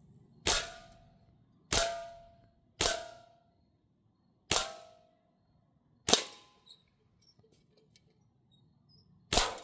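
Crosman M1 BB rifle fired in six single shots at uneven intervals, each a sharp crack followed by a short metallic ring.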